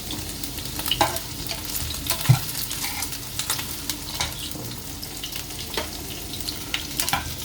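Meatballs sizzling in a frying pan while they are turned with a utensil, with frequent clicks and scrapes against the pan and one sharper knock about two seconds in.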